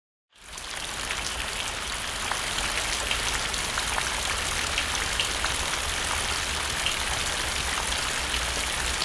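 Steady rain falling, fading in just after the start, with many individual drops ticking against a surface over a continuous hiss.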